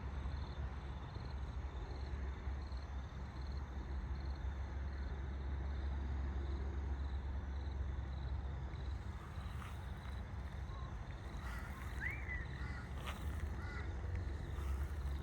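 Creek water flowing steadily, with a low rumble underneath. Birds call several times in the second half, over a faint regular high chirping in the first half.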